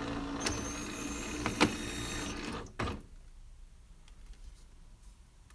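Nivona bean-to-cup coffee machine running: a steady motor hum with mechanical whirr, one sharp click partway through, then the motor stops about halfway with a knock.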